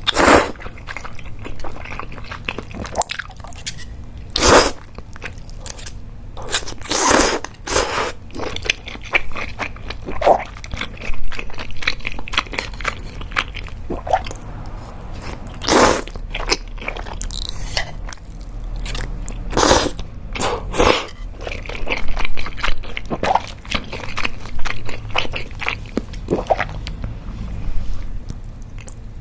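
Close-miked eating of mentaiko cream udon: loud noodle slurps every few seconds, with wet chewing in between.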